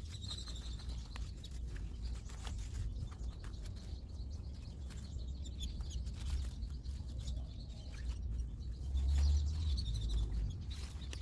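Birds chirping over a low, gusty rumble, with scattered light clicks.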